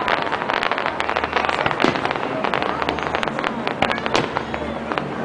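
Fireworks display: a dense crackle of many small bursts, with a few louder bangs about two and four seconds in.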